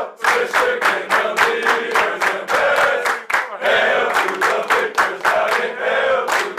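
A group of players singing and shouting a chant together while clapping fast in rhythm, as a team celebrates a win.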